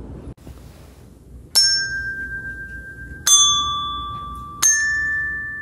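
Touch bells pressed one at a time, three strikes about a second and a half apart. Each rings on with a clear, slowly fading tone at a different pitch: the second lower, the third highest.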